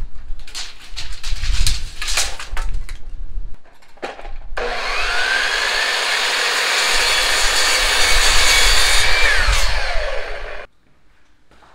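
A few sharp knocks, then an electric miter saw spins up and cuts through a rough cedar board, the blade's whine holding steady under load and falling away as it winds down near the end.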